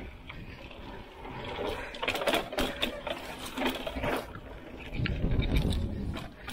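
Mountain bike riding fast down a dirt trail: tyres crunching over dirt and a rapid clattering rattle from the bike over the bumps, heaviest in the middle, with a low rumble about five seconds in.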